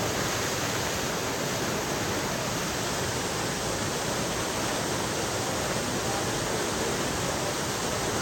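A waterfall rushing steadily: an even, unbroken wash of falling water.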